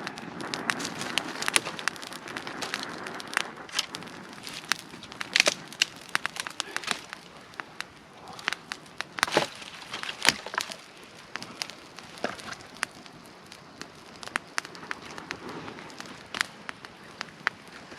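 Wood campfire crackling, with irregular sharp pops and snaps over a steady hiss.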